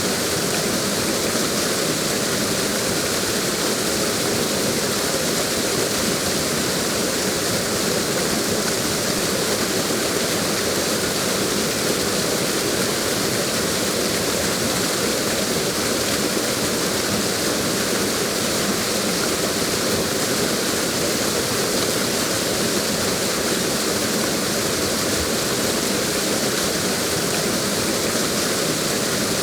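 Waterfall rushing steadily, a dense, even roar of falling water with no change in level.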